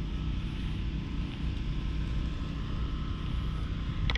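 Domestic cat purring right at the microphone, a steady low rumble.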